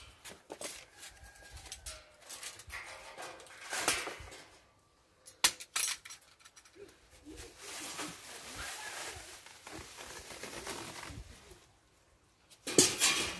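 Hand tools working on the metal parts of an ATV, freeing a clip and a stubborn screw: metal clinks and scraping, two sharp clicks about halfway through, and a louder clatter near the end.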